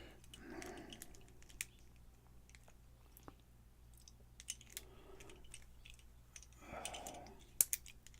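Scattered small metallic clicks and scrapes of a pin-tumbler challenge lock being taken apart by hand, its core being worked loose with a tool.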